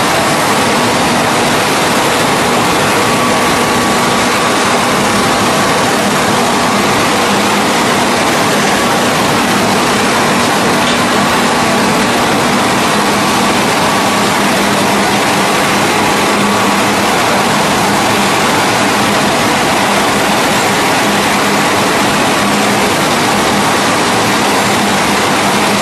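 Hydraulic single-spindle veneer peeling lathe running while it peels a log into thin face veneer: a constant, loud mechanical rush with a steady hum under it.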